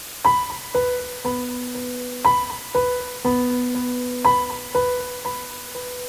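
Music: a slow, simple melody of single keyboard notes, piano-like, struck about twice a second, each ringing and dying away, with a brighter, higher note just at the end.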